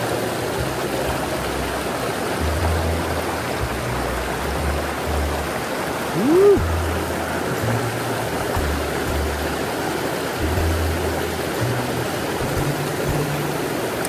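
Mountain stream rushing steadily over rocks and small cascades, with low bass notes of background music coming and going under it. A short tone rises and falls about six seconds in.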